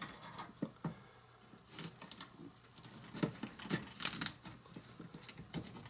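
A small knife cutting a fresh jalapeño on a small wooden cutting board: faint, irregular clicks and taps as the blade goes through the pepper and meets the board, more of them a little past halfway.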